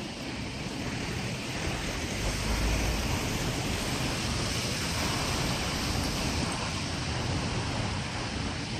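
Steady rushing outdoor noise, like wind blowing across the microphone, with a heavier low rumble from a gust about two to three seconds in.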